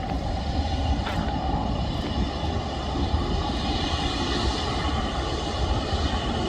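Airbus A330neo's Rolls-Royce Trent 7000 turbofans running at taxi power as the airliner rolls along the taxiway: a steady rumble with a thin, steady high whine.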